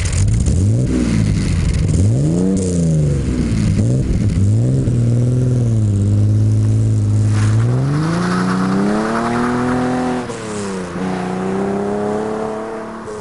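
1969 Reliant Scimitar GTE's 3-litre Essex V6 with its centre exhaust boxes removed, pulling away and accelerating through the gears. The exhaust note climbs with each gear, drops at each change, and fades over the last few seconds as the car drives off.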